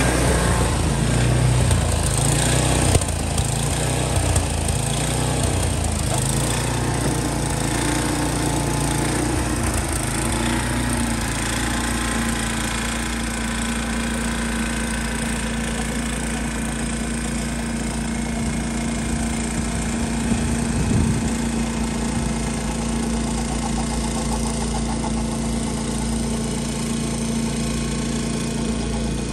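Yard Machines two-stage snowblower's small gas engine running under load while clearing snow. The engine note is uneven for the first ten seconds or so, then settles into a steady hum as the machine moves off down the driveway.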